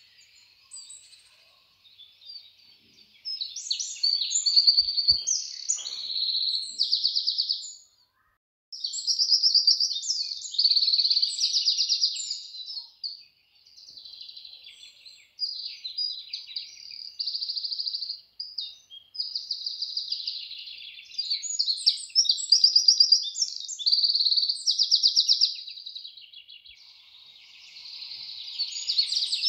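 Outdoor chorus of high-pitched chirping and rapid trilling calls, coming in uneven spells and breaking off abruptly a few times.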